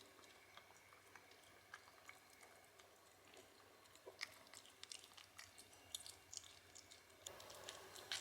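A small cat chewing and eating close by: faint, irregular wet clicks and crunches.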